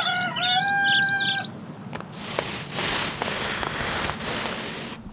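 A rooster crowing once, ending on a long held note, as a morning sound effect. It is followed by a few seconds of steady hiss-like background noise with some faint clicks.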